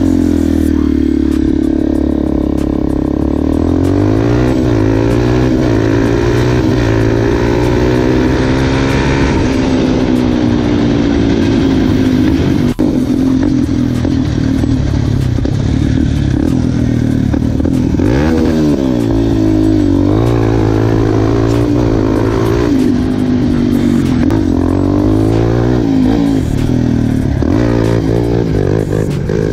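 Yamaha Raptor quad's engine breathing through an FMF full exhaust line, running hard while being ridden. The revs rise and fall again and again, with a sharp drop and climb about two-thirds of the way through.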